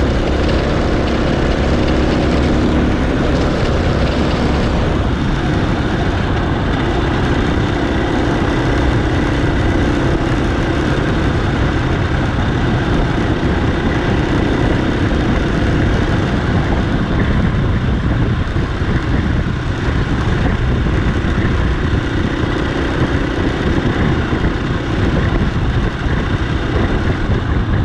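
Dirt bike engine running steadily under way on a rough dirt track, mixed with wind noise on the microphone.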